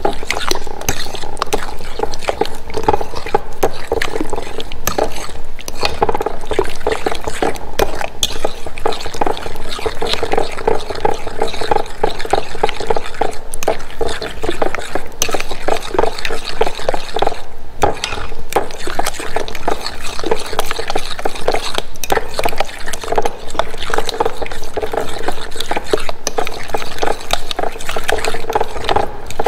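A metal utensil stirring thick, wet banana bread batter of mashed banana, eggs and yogurt in a glass mixing bowl. The strokes are fast and continuous, with quick repeated clicks of metal against the glass.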